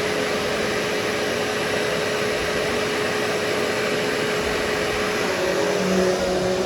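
Vacuum cleaner running steadily over carpet during pre-vacuuming, with its motor tone shifting lower about five and a half seconds in.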